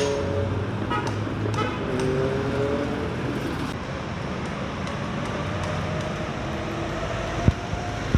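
Road traffic: cars driving past with their engines running. There is a single short knock about seven and a half seconds in.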